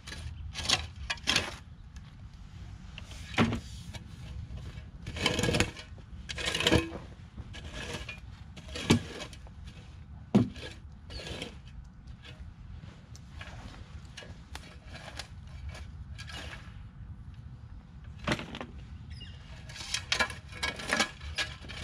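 Square-bladed shovel scraping and digging into dirt and chicken manure, with irregular scrapes and knocks every second or two. There is a quieter stretch in the middle and a quick run of scrapes near the end.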